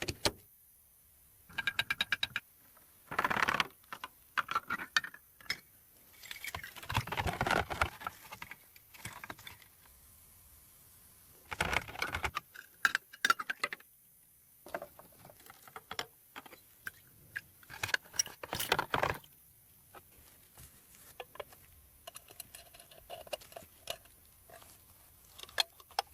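Small metal lighter parts clicking, scraping and rattling as they are handled, in irregular bursts with short pauses between.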